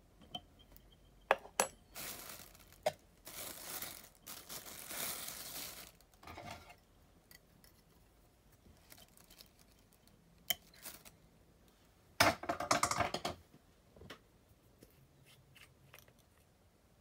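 Small clicks and taps with stretches of rustling from fly-tying tools and materials being handled. The longest rustle runs from about two to six seconds in, and the loudest comes about twelve seconds in.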